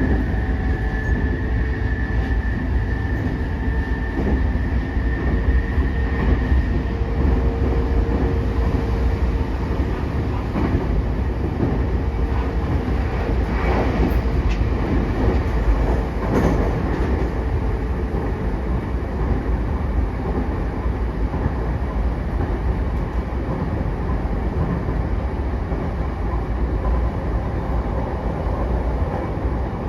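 JR E233 series 8000-number electric multiple unit running at speed, heard from inside the car: a continuous rumble of wheels on rails, with a high steady whine for the first several seconds and a lower steady hum between about seven and seventeen seconds in.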